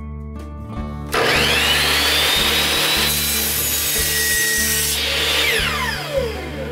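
Ridgid miter saw switched on about a second in, its motor spinning up with a rising whine and cutting through a dark hardwood board. The whine holds steady for several seconds, then falls as the saw winds down near the end.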